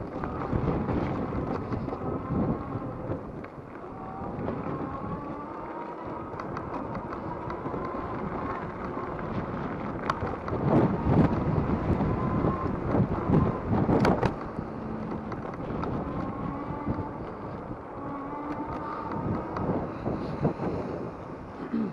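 Wind buffeting the microphone over the rolling of an e-bike, with a faint whine that rises and falls in pitch. A run of knocks and rattles comes about ten to fourteen seconds in, as over rough ground.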